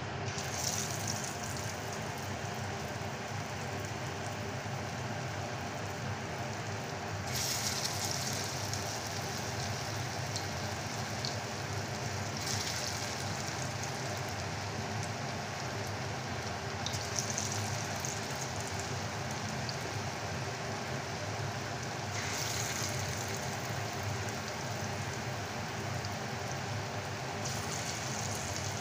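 Bottle gourd kofta fritters deep-frying in hot oil in a kadhai: a steady sizzle of bubbling oil.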